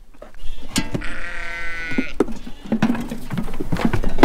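A sheep bleats once, a long call of about a second, among scattered knocks and rattles.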